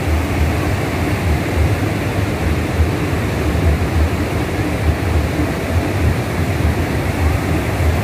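Steady rush of a muddy river pouring over the rock ledges and rapids of a waterfall, with a heavy low rumble underneath.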